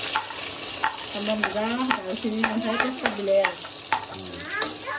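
A spatula stirring food in a pan, clicking sharply against the pan again and again, while the food sizzles as it fries in oil.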